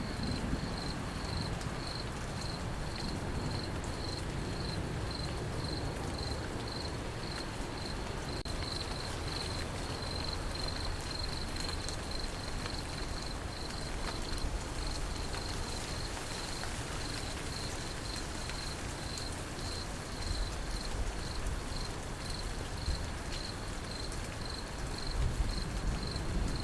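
Crickets chirping steadily at about two chirps a second over the steady hiss of rain, with a low rumble beneath that starts to swell near the end as thunder builds.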